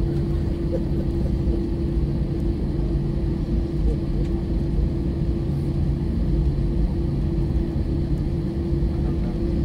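Steady low rumble inside the cabin of an Airbus A320-family airliner taxiing with its jet engines at idle, with a constant droning tone over it.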